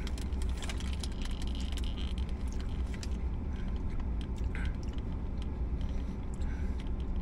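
Faint crinkling of a paper sandwich wrapper and soft, squishy handling of a fried chicken sandwich and a tomato slice, with small clicks throughout over a steady low hum.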